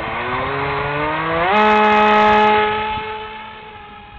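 Small 8-gram electric motor and propeller of a lightweight foam RC plane whining. Its pitch rises as the throttle comes up during the first second and a half, then holds a steady tone that is loudest about two seconds in and fades as the plane flies away.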